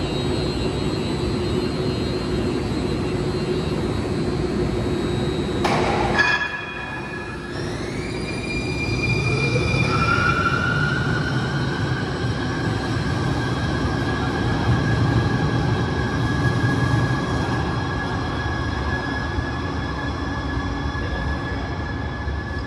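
Siemens S200 SF light-rail train pulling out of an underground station. Over a steady hum, a brief burst of noise comes about six seconds in. Then the electric drive's whine glides upward in pitch as the train accelerates, and a long high whine is held over a low rumble as it rolls away.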